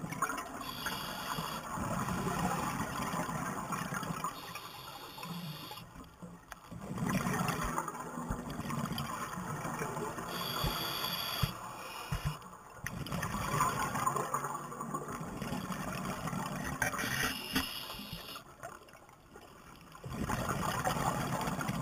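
Scuba breathing through a demand regulator underwater: a short hissing inhale followed by a few seconds of bubbling exhaust, repeated about three times with brief pauses between breaths.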